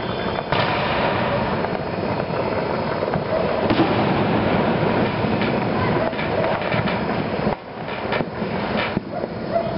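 A long string of firecrackers going off in a dense, rapid crackle of bangs, cutting out about three quarters of the way through, with a few scattered bangs after.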